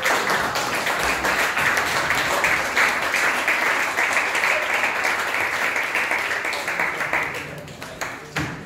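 Audience applauding: a dense run of hand claps that dies away near the end.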